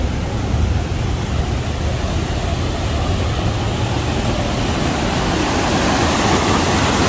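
Swollen river in flood after heavy rain, its water rushing in a steady wash of noise over a low rumble; the rush grows louder over the last couple of seconds.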